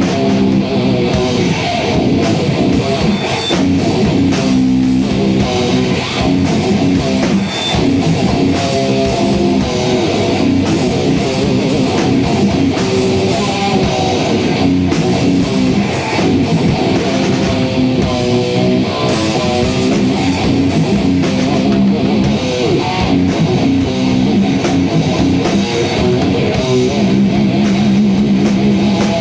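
Rock band jamming: electric guitar leading over drums, loud and continuous.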